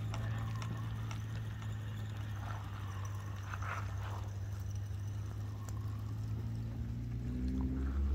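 A hooked fish being played on rod and reel: reel winding and rhythmic handling knocks over a steady low hum.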